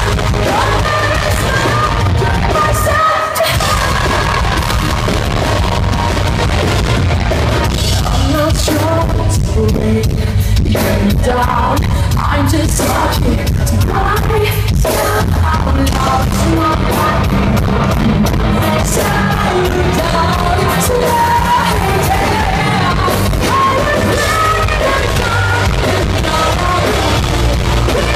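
Live pop-punk rock band playing loud: a female lead singer over electric guitar, bass guitar and drums, with a brief stop in the low end about three seconds in.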